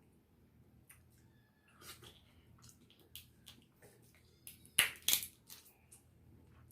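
Close-up eating sounds: scattered wet clicks and crunches of mouth and food, with two loud cracks in quick succession about five seconds in.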